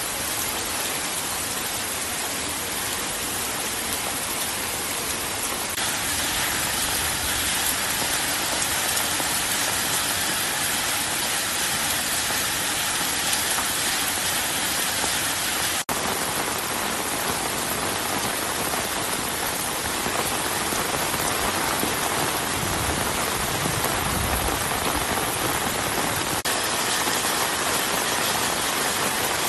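Heavy monsoon rain falling steadily: a dense, even hiss of rain on a wet road and roofs. There is a brief click and dropout about sixteen seconds in, and the texture of the rain shifts slightly at a couple of points.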